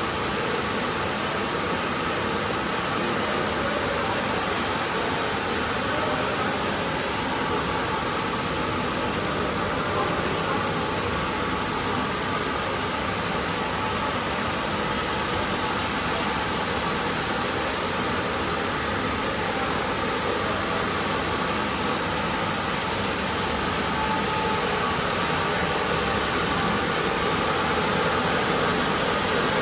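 Double-layer co-extrusion blown film machine running: a steady mechanical hum and rushing noise from its motors, air blowers and rollers, with a few faint steady tones and no distinct knocks.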